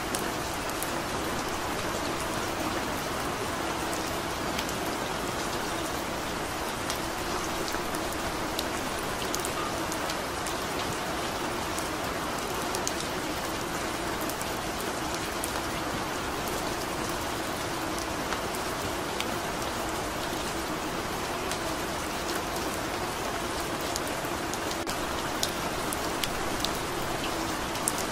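Steady rain falling, a constant hiss with scattered drop ticks.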